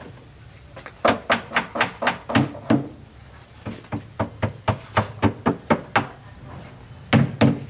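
Hammer blows on a wooden subwoofer cabinet: two quick runs of sharp knocks, about four a second with a short pause between, then three more near the end.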